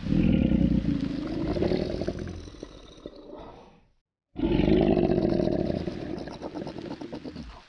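Crocodile bellowing: two long, low, rasping bellows, the second starting about four seconds in after a brief gap.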